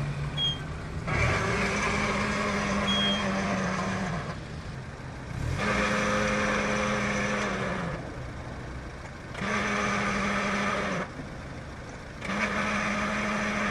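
Car engine idling with a manual transmission's worn pilot bushing or bearing making noise with the clutch pedal down: four times, a steady low hum with a rough, hissing noise above it comes in for two to three seconds and then drops away. This is the sign of a failing pilot bushing or bearing in the flywheel.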